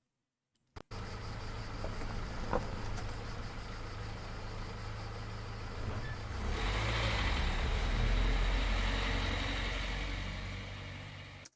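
Car engine sound effect: the engine running steadily, then getting louder about six and a half seconds in as the car pulls away, then cut off abruptly near the end.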